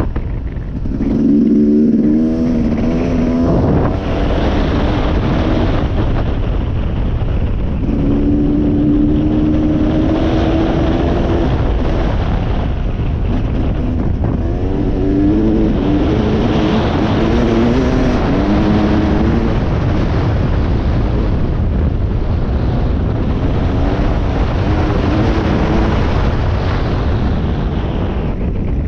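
Dirt bike engine running on a ride, its pitch rising and falling again and again as it speeds up and eases off. A steady low wind rumble on the microphone runs underneath.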